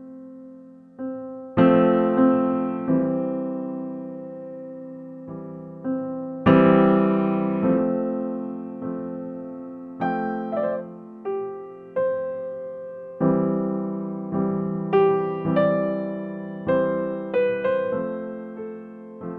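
Background music: a slow, gentle piano piece on an electric piano, with chords and single notes struck every second or so, each left to ring and fade.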